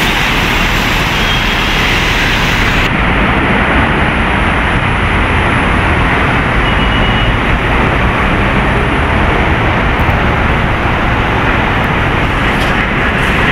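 Steady, loud city road traffic: heavy trucks and cars passing close by with engine rumble and tyre noise. The high hiss drops away suddenly about three seconds in.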